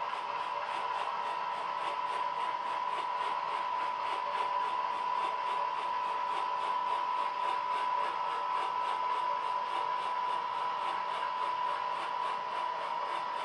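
OO gauge model of the diesel locomotive 10001 running slowly along the track: a steady whine with a light, regular ticking about three times a second.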